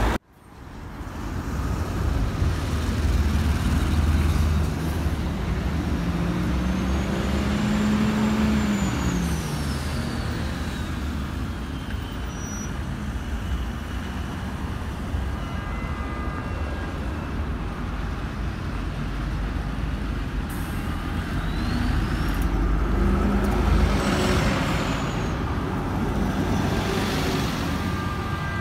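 Road traffic on a multi-lane city road: cars, a van and buses driving past close by, with a steady road noise. Engine notes rise and fall as vehicles pass, once about eight seconds in and louder again about twenty-four seconds in.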